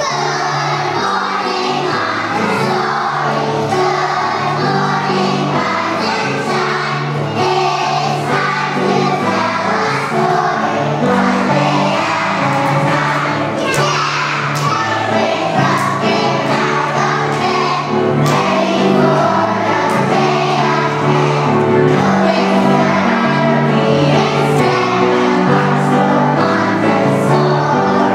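A group of young children singing a song together, with piano accompaniment.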